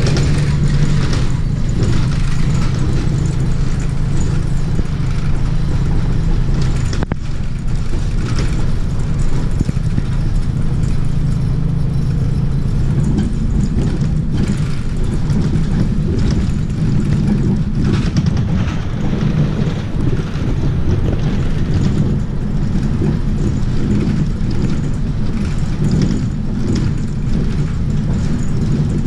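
Mercedes-Benz city bus driving, heard from inside the passenger cabin: a steady low engine hum and road rumble whose pitch shifts a little as the bus moves through traffic.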